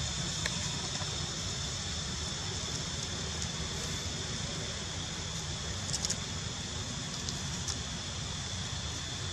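Steady outdoor ambience: an even hiss and low rumble under a constant high-pitched drone, with a few faint clicks about six seconds in.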